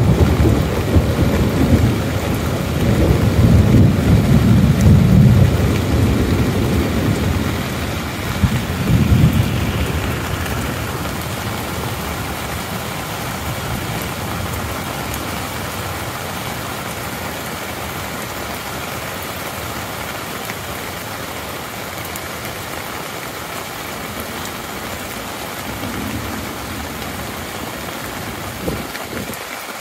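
Rain falling steadily on a tent. Deep rolling thunder swells twice and rumbles over the first ten seconds or so, then fades away under the rain, with a fainter rumble near the end.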